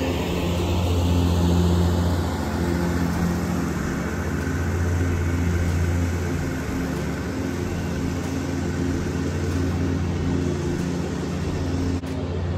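Caterpillar diesel engine of a Scag Turf Tiger zero-turn mower running steadily as the mower travels across the lawn, its hum swelling and easing a little as it moves.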